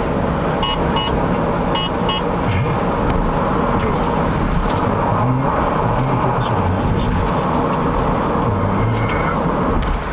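Steady road, tyre and engine noise inside a car's cabin at expressway speed, with a few brief high tones in the first two seconds.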